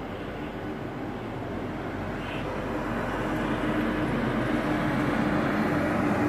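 A bus's engine running as it approaches, a steady hum that grows gradually louder.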